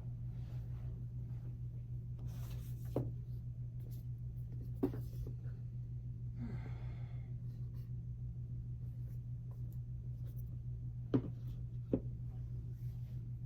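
A steady low hum under four light taps, with one short rustle about halfway through.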